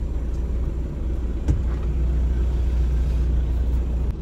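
Mitsubishi Pajero's diesel engine idling steadily, a low rumble heard from inside the cabin, with a single sharp click about a second and a half in.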